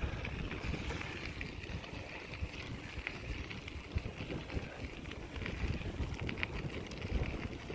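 Knobby tyres of a vintage Raleigh M50 mountain bike rolling steadily over crushed limestone, a gritty rolling noise with scattered small ticks, with wind buffeting the microphone.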